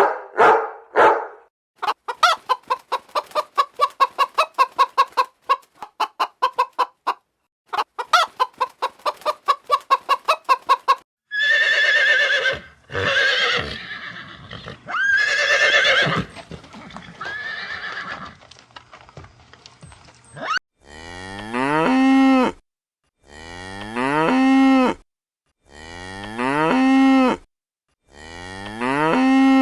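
A run of farm animal calls: quick repeated clucking-like pulses, then several wavering calls, then a cow mooing four times, each moo long and swelling.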